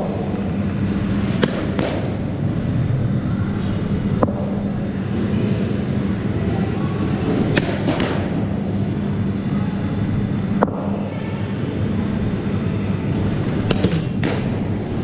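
Sharp cracks of cricket bats striking balls in indoor practice nets, several of them a few seconds apart, over a steady low hum.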